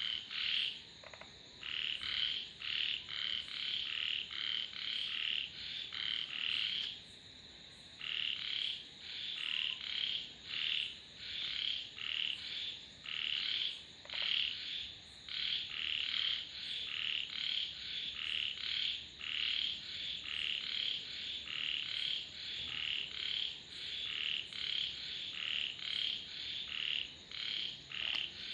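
Frogs calling, a fast run of short, high croaks about two a second, pausing briefly twice.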